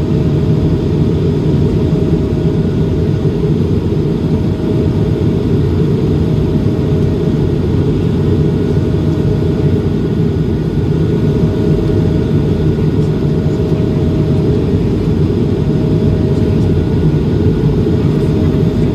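Steady engine and airflow roar of an Airbus A220-300 in flight, its Pratt & Whitney PW1500G geared turbofans running at climb power, heard as a deep, even rumble with a faint thin tone above it.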